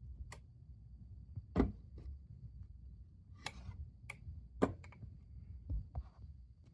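Scattered clicks and knocks of a radio alarm clock being handled, about nine of them at uneven spacing, with a faint steady high whine underneath.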